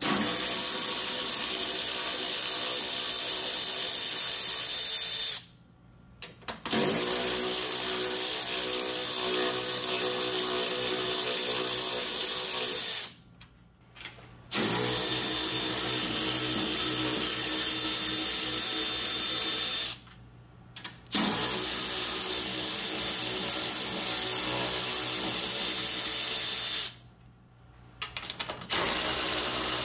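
Milwaukee Fuel cordless ratchet whining steadily as it backs out 10 mm bolts, in about five runs of five to six seconds each. Short, near-silent breaks of a second or two fall between the runs.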